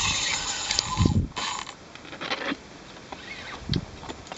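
Daiwa Saltiga 6000GT spinning reel's drag buzzing as a hooked shark pulls line off against it. It stops just after a second in, buzzes again briefly, and then only a few handling knocks follow.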